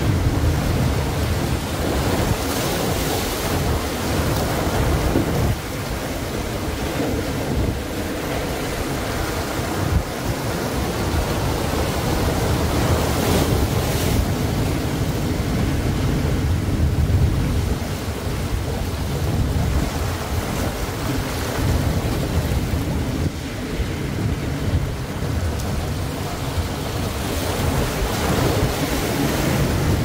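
Ocean surf breaking and washing onto a sandy beach, a steady rush of water with wind buffeting the microphone as a low rumble.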